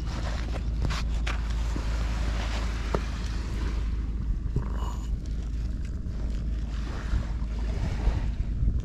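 Wind buffeting the microphone in a steady low rumble, with waves washing on the beach behind it and a few faint clicks.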